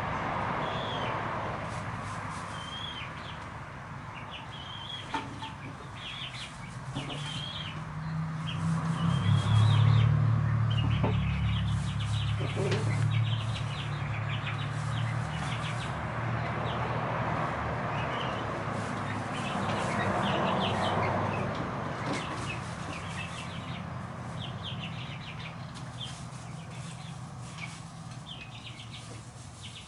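Young chickens giving many short, high chirps and soft clucks while preening, with some rustling of feathers. A low hum swells to the loudest point around the middle and fades again.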